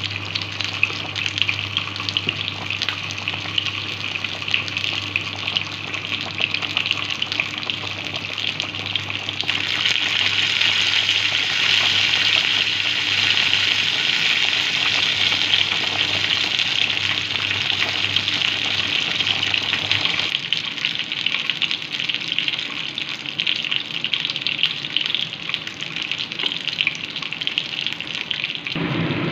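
A pot of soup boiling hard on an induction hob, a steady bubbling hiss that grows louder about ten seconds in. A low hum underneath stops about twenty seconds in.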